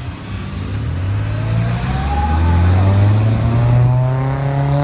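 School bus engine accelerating as the bus pulls away and turns close by, its low note rising in pitch and growing louder.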